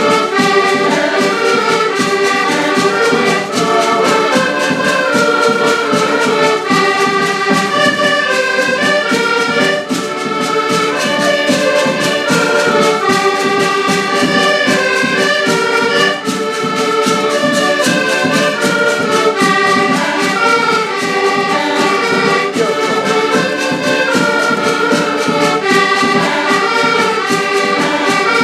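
Band music: brass instruments play a melody over a steady beat, without a break.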